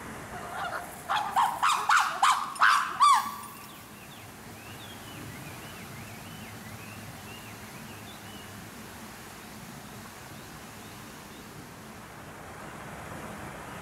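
Chimpanzee pant-hoot: a quickening run of about eight hoots that rise in pitch and grow louder over some three seconds to a peak, then stop. Faint small-bird chirps follow.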